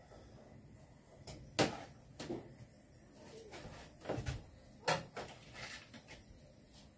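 Scattered knocks and clicks of hands and tools at a wall-mounted solar charge controller and breaker box as the wiring is worked on: a handful of sharp knocks, the loudest about a second and a half in, with smaller clicks between.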